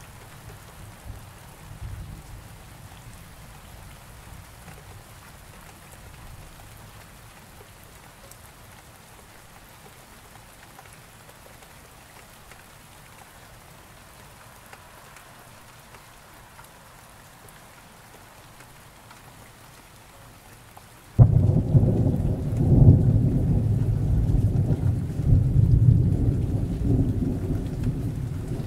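Steady rain falling, then after about twenty seconds a sudden loud thunderclap that rolls on as a long, low rumble.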